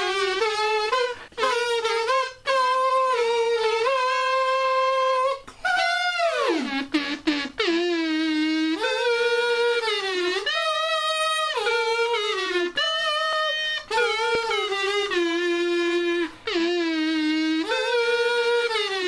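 A single voice humming a wordless tune, with held notes that step up and down and a long swoop downward about six seconds in.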